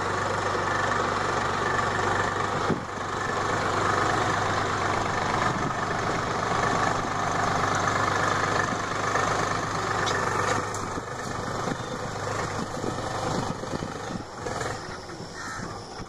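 Tractor engine running steadily as it clears grass and scrub, with birds calling over it.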